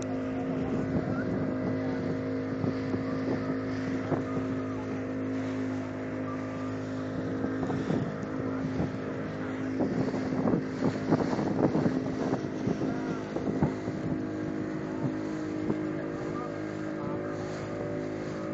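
Speedboat's outboard motor running steadily at speed, with water and wind rushing past. About halfway through comes a cluster of knocks and splashes as the hull bounces over the waves.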